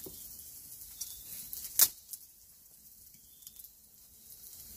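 Faint sizzling of scrambled eggs in a skillet and light crackling of an open wood fire, with one sharp knock a little under two seconds in.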